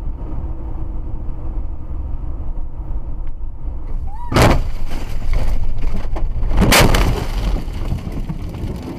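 A car crash recorded from inside the car: steady road and engine rumble while driving, then a loud collision impact about four and a half seconds in, and a second burst of crashing and banging around seven seconds as the car goes off the road into trees.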